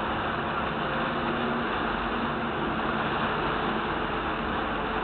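Tugboat's diesel engines running steadily, a constant rushing rumble with faint low hums in it.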